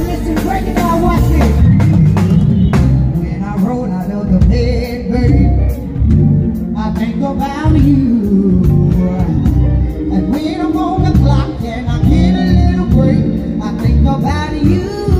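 A woman singing live into a microphone over loud music with drums and bass, carried through a stage PA system.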